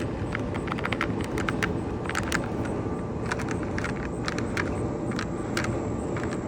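Air blowing out of a clothes-dryer exhaust vent, heard as a steady, windy rumble on the microphone, with many light, irregular clicks and rattles throughout.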